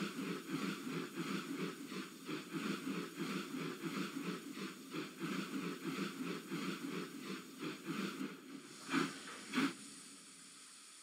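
Small steam locomotive chuffing along at a steady, even beat. Near the end come two louder sharp sounds, then the chuffing falls quieter.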